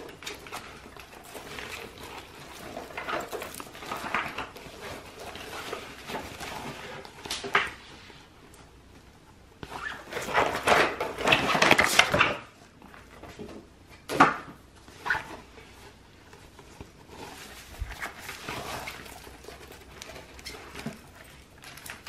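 Rustling and soft knocks as a mesh tote bag is handled, opened and moved on a table, with a louder, longer stretch of rustling about halfway through and a sharp knock soon after.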